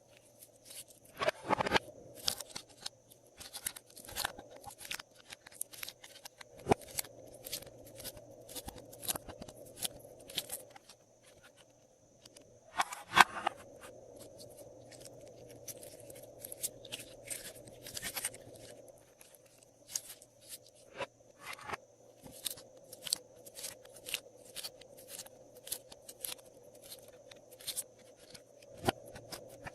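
Glossy slime being kneaded and stretched by hand, giving an irregular stream of sticky clicks and crackling pops, with louder bursts about a second and a half in and about thirteen seconds in.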